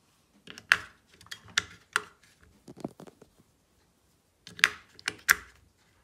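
AA batteries being pressed one by one into the plastic battery compartment of a Hive smart thermostat: a run of sharp clicks as they snap into the spring contacts, with a pause of about a second and a half partway through.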